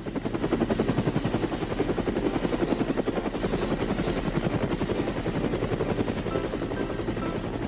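Cartoon helicopter sound effect: a fast, steady rotor chop with a thin high whine over it, rising in at the start.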